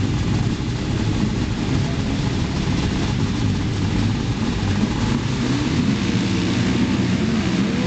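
Several sidecar motocross outfits' engines running together on the start line, their pitch rising and falling as they are revved.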